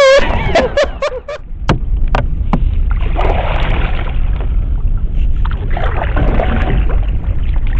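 Canoe being paddled on a shallow river: a few sharp knocks in the first couple of seconds, then swishing oar strokes through the water, over a steady low rumble.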